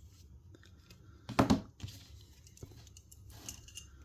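Handling noises as a small diecast model car is turned over in the hands: a brief scraping rustle about a second and a half in, followed by a few small clicks.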